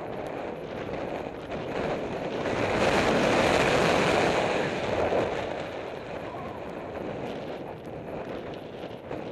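Strong wind buffeting the microphone as a steady rushing noise, swelling into a loud gust a few seconds in and easing off again.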